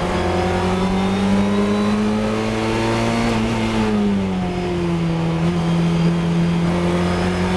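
Fun Cup race car's engine heard from inside the cockpit, pulling hard with its pitch climbing slowly for about three seconds, then falling as the car slows from about 73 to 55 mph, before holding nearly steady.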